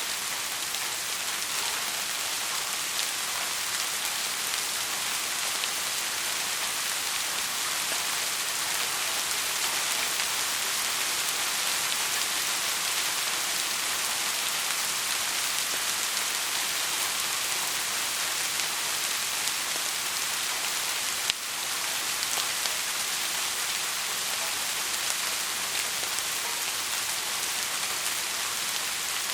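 Heavy rain falling steadily, an even dense hiss of countless drops. About two-thirds of the way through there is a single sharp click, and the level dips for a moment.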